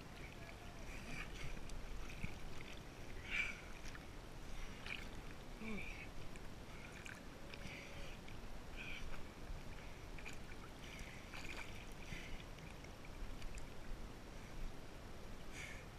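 Water lapping and splashing close to a waterproof action camera at the waterline, in short irregular slaps.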